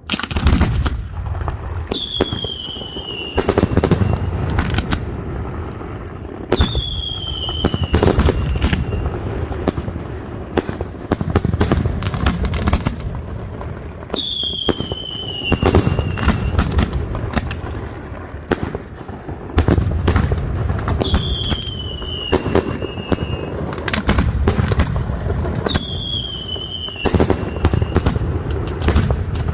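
Castillo fireworks going off: constant bangs and crackling over a low rumble. A falling whistle sounds five times, each followed by a burst of sharp reports.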